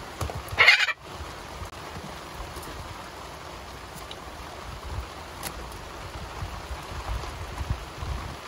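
A green-winged macaw gives one loud, harsh squawk about half a second in, then falls silent over the steady hiss of rain falling on the boat.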